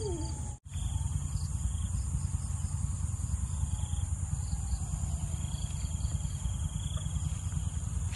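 Insects chirring in the field: a steady high buzz, with a pulsing trill that starts and stops every few seconds, over a low rumble. The audio cuts out for a moment about half a second in.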